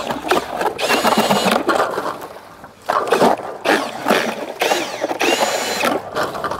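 Cordless drill spinning an ice auger in the hole, its motor whining in two bursts of about a second each, around one second in and again near five seconds, with the scraping and crunching of ice and slush between them.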